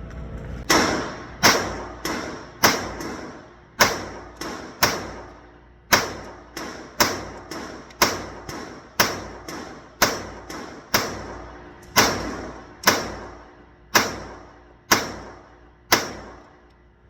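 A steady string of about twenty single gunshots, roughly one or two a second with a couple of brief pauses, each shot ringing out and dying away quickly.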